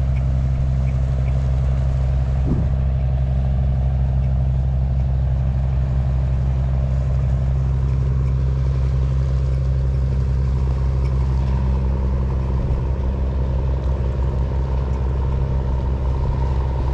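An engine running steadily at constant speed: a low, even drone whose pitch does not change.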